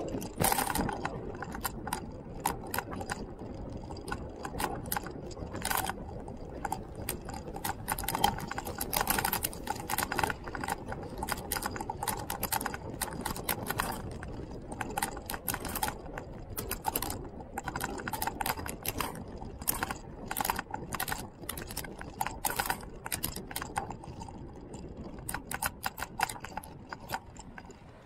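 Loose parts of the moving vehicle that carries the camera rattling and clicking irregularly as it rolls along a paved road, over a low steady rolling rumble.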